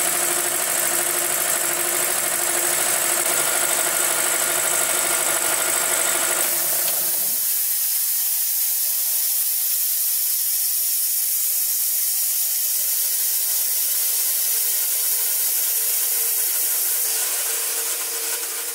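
Eaton 10 hp single-phase piston air compressor running steadily under load as it fills its 80-gallon tank, the sound turning abruptly thinner about six seconds in. Near the end it winds down as the tank reaches its 175 psi cut-out pressure and the pump shuts off.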